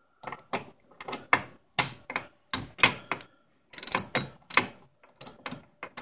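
A wrench tightening a brake caliper mounting bolt: a series of short, sharp metallic clicks as the wrench is worked in strokes, roughly two a second.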